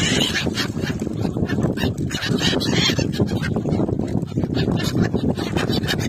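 A flock of gulls calling, many short calls overlapping and thickest about two to three seconds in, over a steady low rumble.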